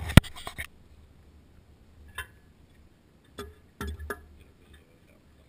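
A sharp knock just after the start, then a few scattered metallic clicks and clinks as a large adjustable wrench is handled against the steel toolbar fittings.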